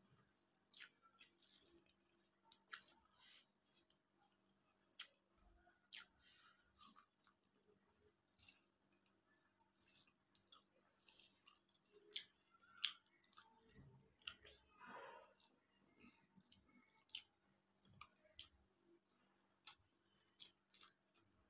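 A person chewing a mouthful of rice and hilsa fish close to the microphone: quiet, with many sharp wet mouth clicks and smacks at an uneven pace, and fingers squishing rice on a steel plate.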